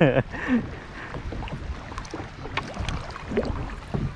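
Double-bladed paddle strokes on a kayak: short splashes and drips as the blades dip and lift, over a steady wash of moving water.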